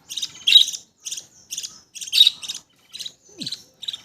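Budgerigars chirping: a run of short, high chirps, about three a second.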